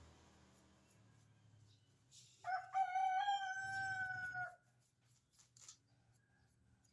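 A rooster crowing once: a single crow of about two seconds, starting about two and a half seconds in and ending on a slightly falling note. A few faint ticks follow.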